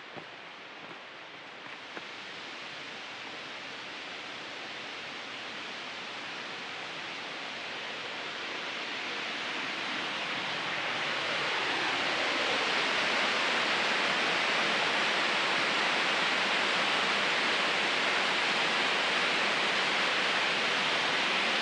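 The upper Wallace Falls waterfall, a steady rush of falling water that grows louder over the first dozen seconds and then holds steady.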